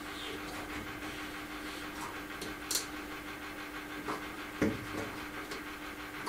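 A few light clicks and taps as a small knob is worked by hand into a wooden cupboard door, over a faint steady hum.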